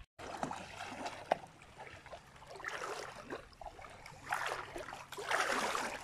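Shallow river water lapping and splashing around a windsurf board as someone stands in it and climbs aboard, with small irregular knocks. The splashing grows louder in the last second or so.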